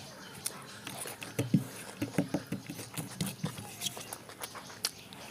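Close-up eating sounds: a person chewing a mouthful of rice with wet, rhythmic mouth sounds, and small clicks and taps as fingers press and gather rice on a plate.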